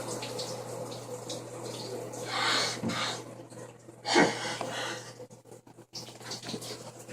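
Shower running in a small bathroom: a steady spray of water that swells louder twice, about two and a half and about four seconds in.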